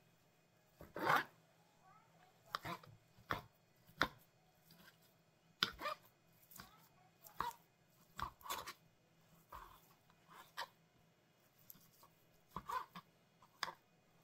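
Kitchen knife cutting raw beef on a cutting board: irregular knocks of the blade against the board, with short pauses between cuts.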